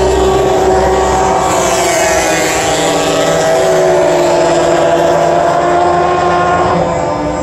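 Race car engines running at speed around the circuit, loud and continuous, the engine note falling over the first few seconds and then climbing again.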